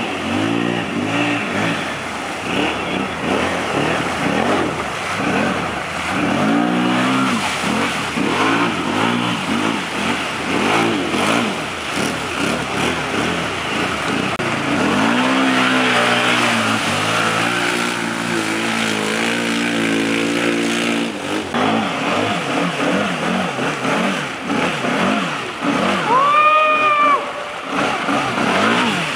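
Can-Am ATV engine revving up and down again and again under load, over a constant rushing noise. Near the end it climbs to its highest and loudest rev, then drops back.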